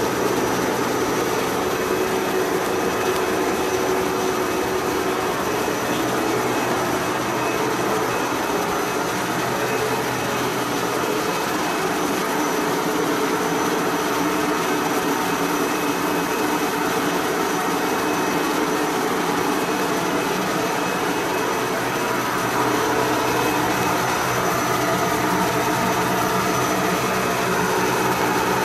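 Steady hum of stopped electric trains idling at a station platform: their cooling fans and auxiliary equipment run continuously, with several held tones over an even whir.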